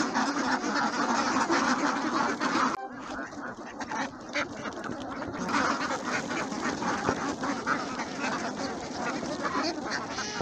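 A large flock of domestic ducks quacking together as they walk, many overlapping calls at once. The quacking drops off abruptly about three seconds in and builds back up a couple of seconds later.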